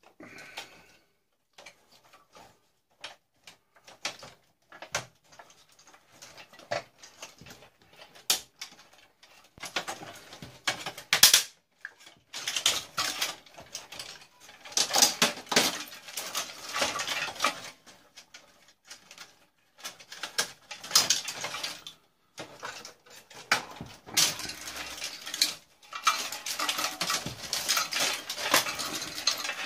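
Irregular clinks, knocks and metallic clattering of parts and tools being handled as an old tube television is taken apart. It is sparse at first, then comes in longer, busier rattling bursts for most of the second half.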